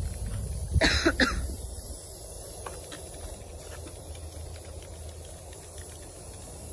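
A person coughs twice in quick succession about a second in, over a faint steady background with a few light clicks.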